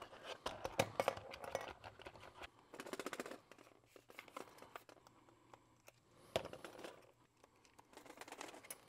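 Small clicks, taps and scraping of lens parts as a partly dismantled Canon EF 100-400mm zoom lens is turned in the hands and a collar piece is worked loose. The sounds come in several short bursts.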